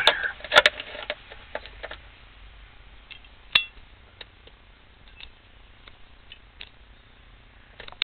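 Small socket tool clicking and tapping against a trim screw and the plastic steering-column cover: a few loud clicks in the first second, one sharp click about three and a half seconds in, then faint scattered ticks.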